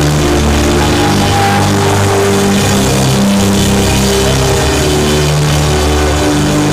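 Loud live worship music: long held chords over a low bass line, the chords changing every second or so.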